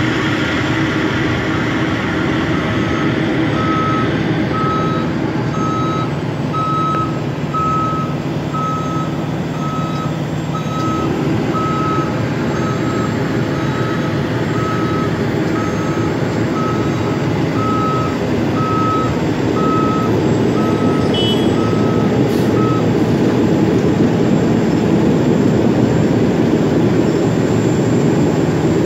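Diesel dump truck reversing, its backup alarm beeping about once a second over a steady engine rumble. The beeping stops a little over 20 seconds in, and the machinery noise of the road milling machine it is backing up to grows louder toward the end.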